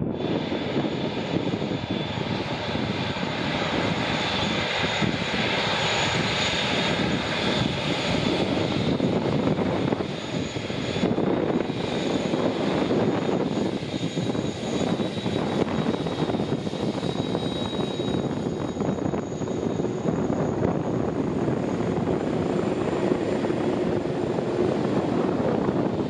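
Airbus A380's four turbofan engines running at taxi power as the airliner rolls close past: a steady rushing jet noise with a high whine. The sound changes abruptly once, about eleven seconds in.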